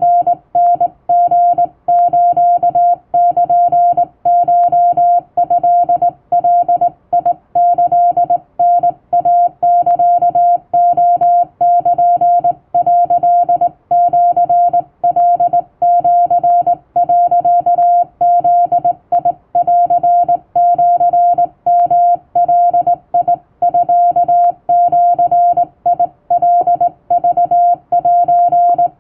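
Hand-keyed Japanese wabun Morse code (CW): a single steady tone switched on and off in dots and dashes, sent by a telegraph key.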